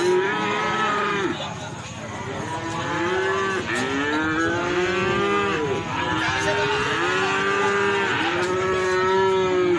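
Several goats bleating, long drawn-out calls overlapping one after another.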